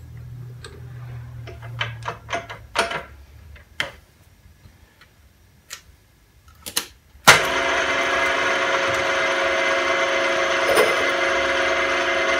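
Sharp metal clicks and knocks as a counterbore cutter is fitted into a milling machine's spindle, then a little over seven seconds in the mill's spindle motor switches on and runs steadily.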